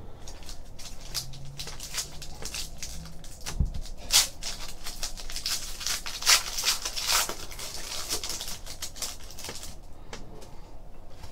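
Hands handling glossy trading cards and a foil card pack: a run of quick clicks, flicks and crinkling rustles, loudest about four seconds in and again around six to seven seconds.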